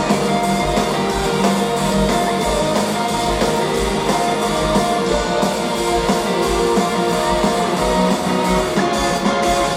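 Live rock band playing, with guitars over bass and a steady kick drum.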